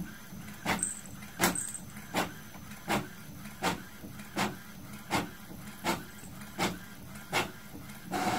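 Epson inkjet printer printing a page: a regular click about every three quarters of a second as the mechanism steps the paper through, over a low steady hum, then a longer, louder mechanical whirr near the end as the page feeds out.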